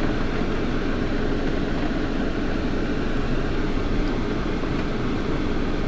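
Steady noise inside a car's cabin, even throughout with no distinct events.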